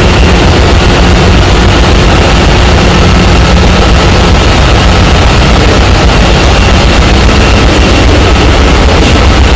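Loud, steady din of a ship's engine room with the main engine running: a deep unbroken hum under a wide roar of machinery noise, with a faint steady high whine on top.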